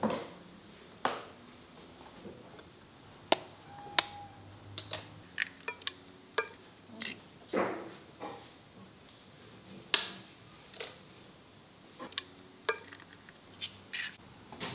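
Kitchen work: knocks of a knife on a wooden cutting board, then scattered clinks and knocks of bowls and utensils, with one short ringing ping about four seconds in.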